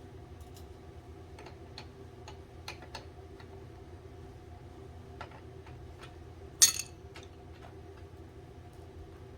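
Metal fittings and hand tools clicking and ticking lightly while a flex oil line is fitted to an oil boiler's burner. One sharp, louder metallic clank comes about two-thirds of the way through, over a steady low hum.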